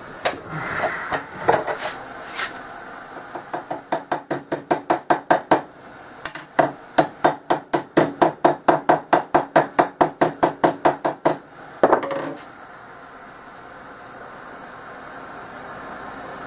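Quick, light hammer taps on the torch-heated end of a 6061 aluminium tube clamped in a bench vise, about five a second in two long runs, flattening the end. One heavier knock follows near the end of the tapping.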